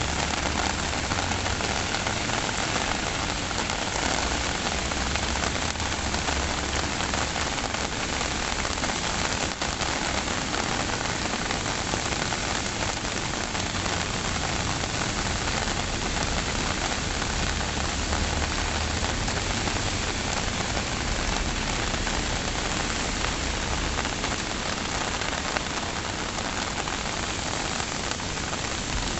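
Steady, heavy rain falling and pattering on surfaces, an even hiss with a low rumble underneath that eases off near the end.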